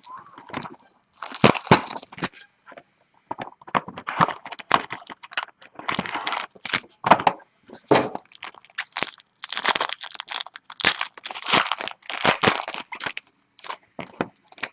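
Plastic wrapping and card packs crinkling and tearing in quick, irregular bursts as a sealed box of trading cards is opened by hand.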